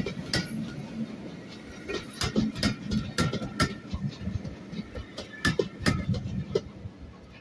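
Passenger coaches rolling past close by: wheels clicking and knocking on the track over a low rumble, the clatter easing off and growing quieter near the end as the train draws away.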